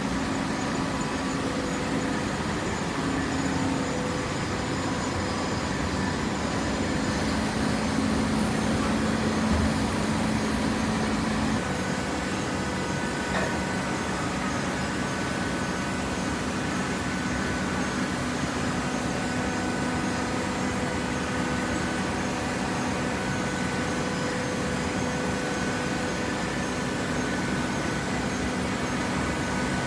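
Hydraulic shredded-paper baler running: a steady motor and pump hum with held tones, which shift in pitch about twelve seconds in.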